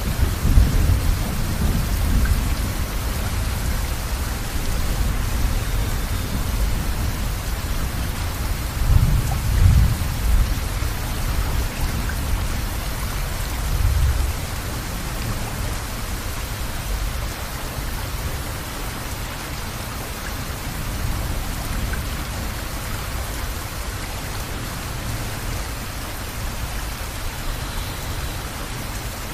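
Steady rain with low rolls of thunder rumbling in the first half, the loudest about nine seconds in and a last one about fourteen seconds in; after that only the rain goes on.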